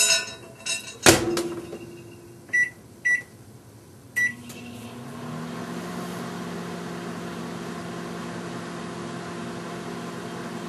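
Microwave oven door shut with a knock, three keypad beeps, then the oven starting up: its hum rises in pitch for about a second and settles into a steady drone.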